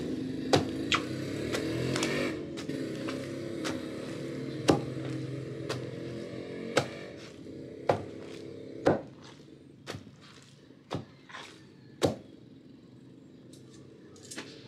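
Long wooden pestle pounding nilupak mash in a wooden mortar: sharp thuds roughly once a second, coming further apart and softer toward the end.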